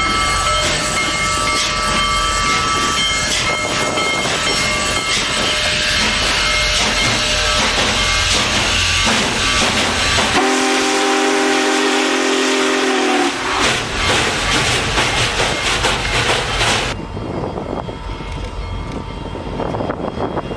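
Union Pacific Big Boy 4014 steam locomotive running past at close range, a loud, dense mechanical rush. About ten seconds in, a whistle sounds a chord of several tones together for about three seconds. The last few seconds are quieter and duller.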